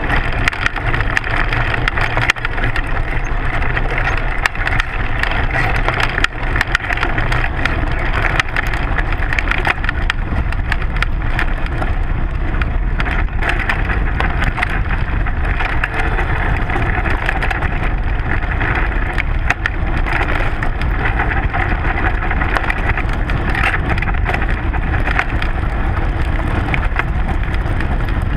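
Mountain bike rolling fast down a dirt and gravel trail, picked up by a camera on the front fork: a loud, steady rumble of tyre and wind with constant rattling and clicking from stones and the bike's parts.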